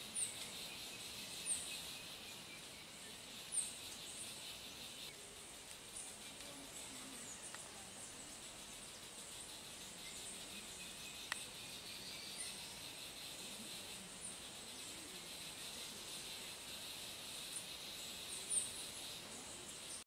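Faint rainforest ambience: a steady high insect hiss, with short high chirps from birds or insects every second or two and a few brief louder calls.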